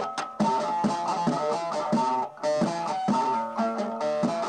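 Music on a plucked string instrument: a quick run of short notes, several of them bent downward in pitch, with a brief break about two seconds in.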